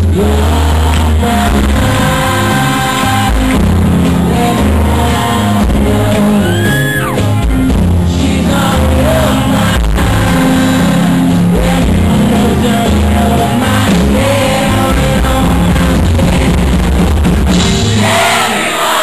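Live rock band playing, with a male lead vocal over drums and bass guitar. Near the end the band stops and the crowd cheers.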